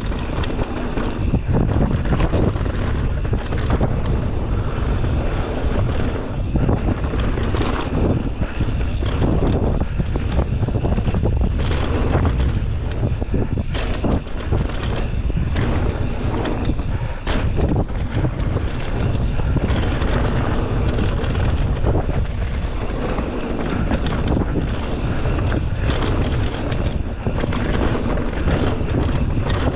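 Wind rushing over the microphone of a camera on a downhill mountain bike, along with the bike's rattling and frequent knocks as it runs over a rough dirt trail.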